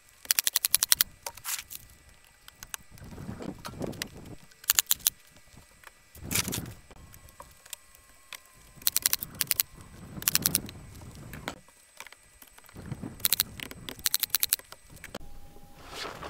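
Work noise at a door frame: several short bursts of rapid clicking and rattling, with duller knocks and scrapes between them.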